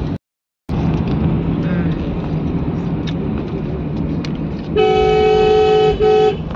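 Car horn sounding one long blast of just over a second, then a short one right after, over the steady engine and road noise of a car heard from inside the cabin. The sound cuts out for about half a second near the start.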